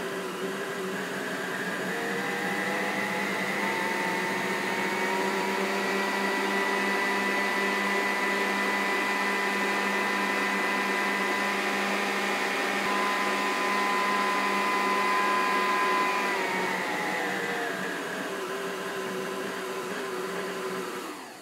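Kenwood Chef A901 food mixer's motor running on its switch-on test after a blown X2 mains capacitor was replaced. Its whine rises in pitch a few seconds in as the speed dial is turned up, holds steady, drops back about 16 seconds in, and cuts off at the very end.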